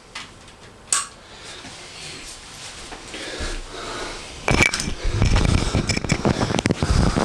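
Handling noise close to the microphone: a sharp click about a second in, then from about four and a half seconds dense rustling, clicking and knocking as a person moves right by it.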